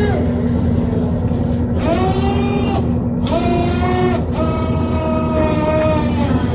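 Machinery whining three times over a steady low drone. Each whine slides up in pitch as it starts, holds steady and drops away at the end; the last one runs about two seconds.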